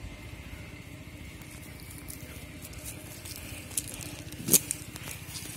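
Cast net being handled and shaken out: scattered crackles and clicks from the mesh and the debris caught in it, with one sharp click about four and a half seconds in, over a low steady rumble.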